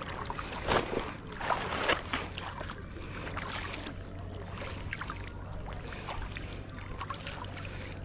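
Fishing net being hauled hand over hand out of the water into a boat, water splashing and dripping off the mesh, with a few louder splashes in the first two seconds.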